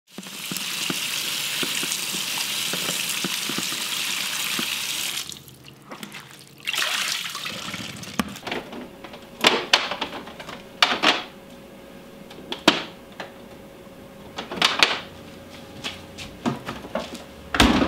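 A kitchen tap runs steadily for about five seconds. Then comes a scatter of sharp clicks and knocks of kitchen work, over a faint steady hum, with a heavier knock near the end.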